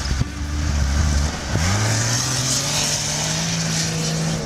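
Toyota Land Cruiser 80's engine pulling under load through deep snow: it falls away briefly about a second and a half in, then rises steadily in pitch as the truck drives on, over a steady hiss.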